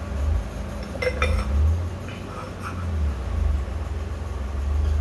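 Light metallic clinks of turbocharger parts being handled, a few around a second in and again between two and three seconds, over a steady low rumble.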